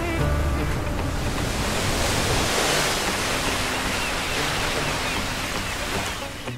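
A steady rushing noise spread across the whole range, with a low rumble in the first half-second.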